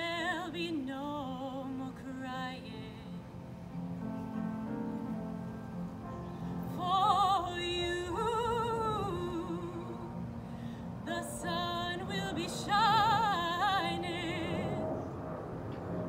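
A woman singing in classical, operatic style with a wide vibrato, in long held phrases separated by short breaks, over a quieter piano accompaniment.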